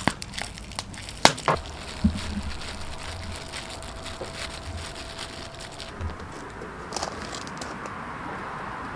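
Scattered clicks and crackles, then from about six seconds in a steady sizzle of hotteok dough frying in oil on a cast-iron pot lid.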